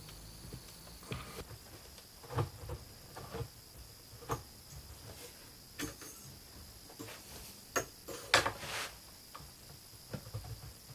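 Scattered small clicks and knocks of metal and plastic parts as a be quiet! Shadow Rock LP CPU cooler is pressed and fastened down onto a motherboard, with a louder run of clicks about eight seconds in.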